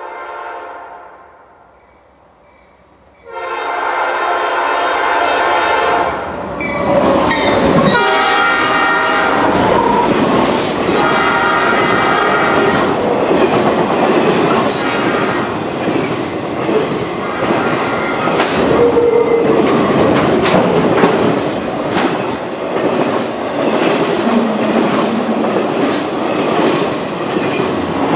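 Norfolk Southern intermodal freight train led by two GE C40-9W locomotives and an EMD SD60M: the locomotive air horn sounds a short blast, then a longer one as the train approaches. The locomotives pass loud with the horn still sounding, then comes a steady clatter of flatcars carrying trailers and containers rolling by, wheels clicking over the rail joints.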